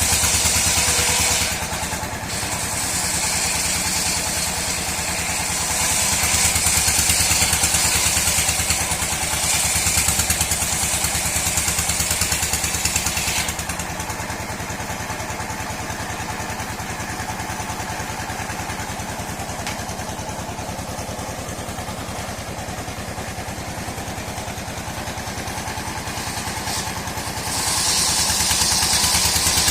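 Engine-driven sawmill running steadily while its saw cuts through dry mahogany: a loud high hissing whine of blade in wood for roughly the first half, dying away so only the engine's steady running is left, then the cut starts again near the end.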